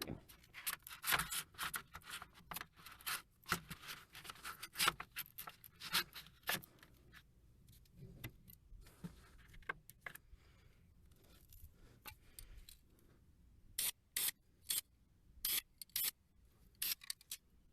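Handling noises as a protective board is moved into place: irregular scrapes, taps and rattles, dense for the first several seconds, then a quieter stretch and a run of sharp short clicks near the end.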